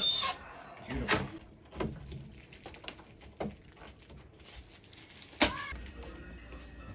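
A few separate clicks and knocks of door lock hardware being handled and fitted, the loudest about five seconds in with a short ring.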